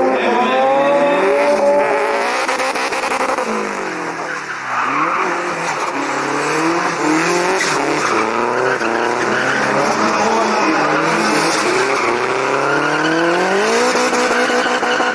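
BMW Z3 drift car being driven hard through a drift, its engine revving up and down repeatedly over the rush of spinning, squealing tyres. The revs drop briefly about four to five seconds in, then climb again.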